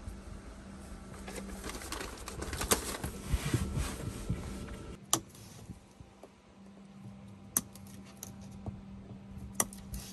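Rustling and clattering as cables and a tool are handled overhead, then a few separate sharp snips from red-handled side cutters working on the cable bundle.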